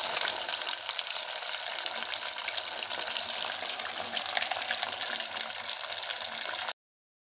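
Water-soaked bread rolls deep-frying in hot oil in a kadai: a steady, dense sizzle full of small crackles and pops. It stops abruptly near the end.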